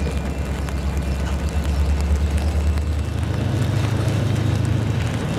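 EMD diesel locomotive engine running under load while switching cars; its deep engine note steps up in pitch about three seconds in as the throttle is opened further.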